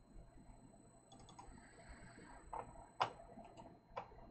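Computer mouse clicking: a few quick light clicks about a second in, then several sharper single clicks, the loudest about three seconds in.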